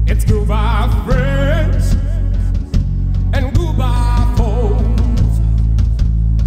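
Loud performance music: a voice sings long notes with wide vibrato over a heavy bass line and drum hits.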